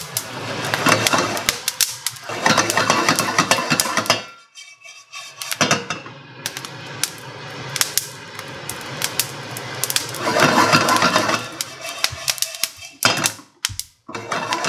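Coffee beans popping at first crack as they roast in a frying pan, a run of sharp cracks mixed with the rattle of the beans being tossed in the pan in several bursts.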